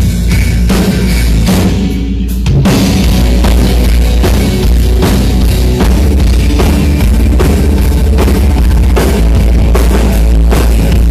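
Rock band playing live at a sound check, with drum kit hits over bass and guitar. The sound drops briefly about two seconds in, then the full band comes back in louder.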